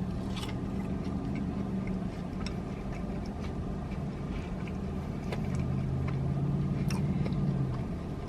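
Car engine and road noise heard from inside the cabin: a steady low hum that grows louder in the second half and eases off near the end, with a few light clicks.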